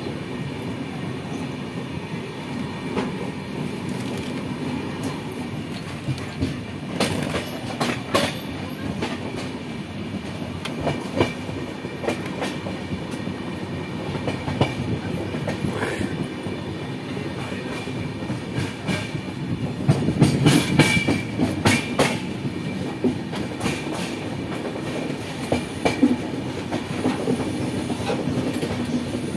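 Passenger train coaches running at speed: a steady rumble of steel wheels on the track, heard from alongside the moving coach, with clickety-clack over rail joints. About twenty seconds in the running gets louder for a couple of seconds with a quick run of clacks.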